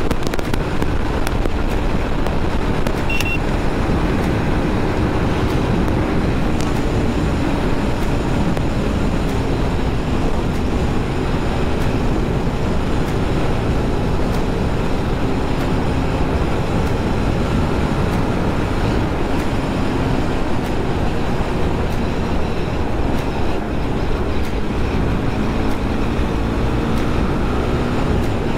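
Wind rushing over the microphone with the steady drone of a KTM RC 390's single-cylinder engine at highway cruising speed, its pitch drifting slightly up and down.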